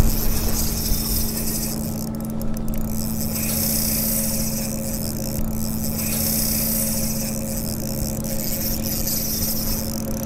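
Fishing boat's engine running steadily, a constant low hum under an even hiss.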